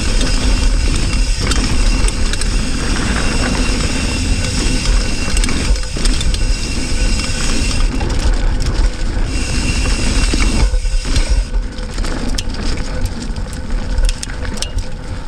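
Riding noise from a hardtail mountain bike on a dirt trail: a steady rush and low rumble of wind across the GoPro's microphone, mixed with tyre crunch and scattered clicks and rattles from the bike over roots and rollers. It eases off near the end as the bike slows.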